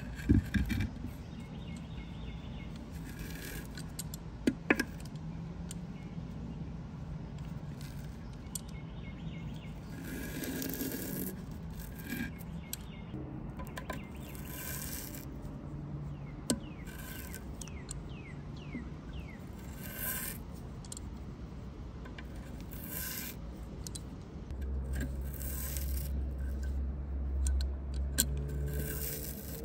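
Old felt gasket being scraped and peeled off the ceramic rim of a Big Green Egg with a metal tool, in irregular scraping and rubbing strokes. There are a few sharp knocks near the start and a low rumble near the end.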